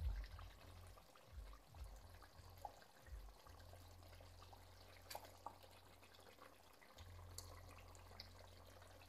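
Near silence: a low steady hum with a few faint soft pops from chicken curry simmering in a pot.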